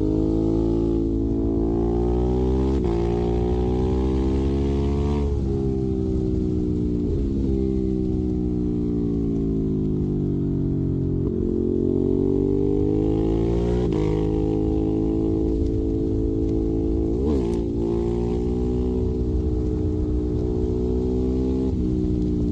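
Ducati Monster 821's L-twin engine through a Termignoni exhaust, under way. The revs climb, drop back sharply a few times as gears change, sink slowly, then climb again. Around two-thirds of the way through there is a quick dip and rise, and after that the engine holds a steady speed.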